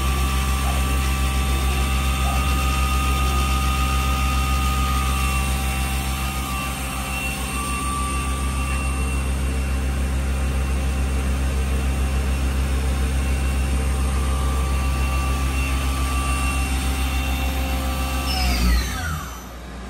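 Doosan Puma TT1800SY CNC lathe running with its spindle at about 4,000 rpm: a steady machine whine made of several tones over a low hum. Near the end the tones fall quickly in pitch and the level drops as the spindle slows down.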